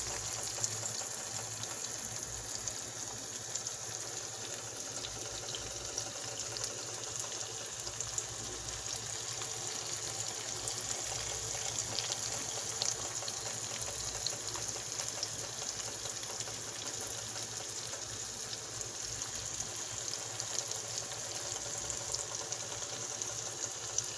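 Seasoned tilapia fillets frying in oil in a pan: a steady sizzle with many small pops and crackles.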